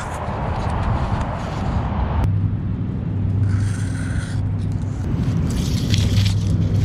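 Grass stems rustling and scraping against the camera's microphone as the camera is held low in the grass, over a steady low rumble. The rustling breaks off abruptly a couple of seconds in and comes back as scratchy brushing near the end.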